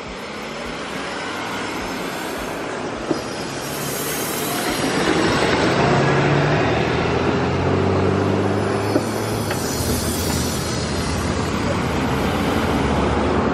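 Street traffic with a large vehicle's engine running close by, getting louder over the first five or six seconds and then holding steady.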